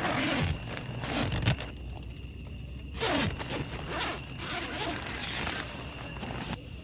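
Tent door zipper being pulled open in four long zips, each lasting about half a second to a second, with short pauses between.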